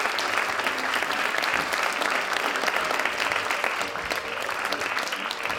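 Theatre audience applauding, dense steady clapping that eases off slightly toward the end.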